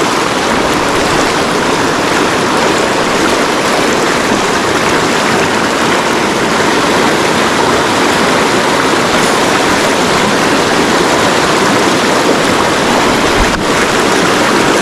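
A rain-swollen river rushing steadily with a strong current, with one brief faint click near the end.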